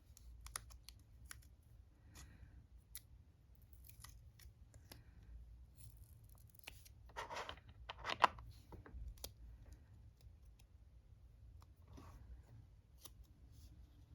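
Faint scattered clicks and taps with short scratchy strokes of brush, paint pans and paper during watercolour swatching. The two loudest strokes come about seven and eight seconds in.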